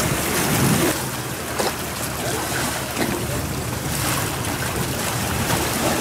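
Outdoor waterside ambience: wind buffeting the microphone over the wash of the sea against the pier, with a few faint knocks.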